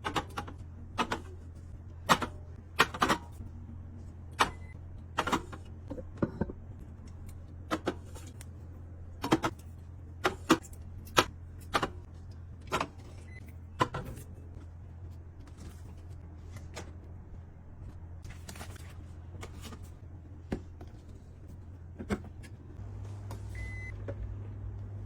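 Sharp taps and clicks of items and plastic containers being handled and set down while a refrigerator is organized. They come thick and fast at first and grow sparse after the first half. A steady low hum runs underneath throughout.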